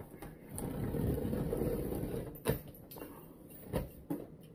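Packaging being handled while unboxing: a rough scraping rustle for about two seconds, then three sharp knocks.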